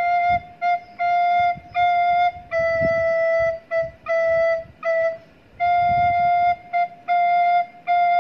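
Plastic soprano recorder playing a slow practice exercise on F and E. A phrase of four tongued F notes is followed by a phrase of four E notes a semitone lower, then the F phrase again, with quick breaths between phrases.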